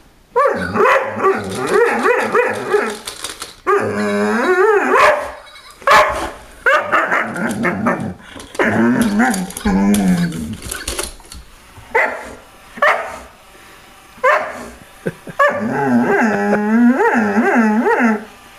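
Doberman vocalizing at length: drawn-out wavering barks and growl-like calls, each one to three seconds long, broken by a few short sharp barks.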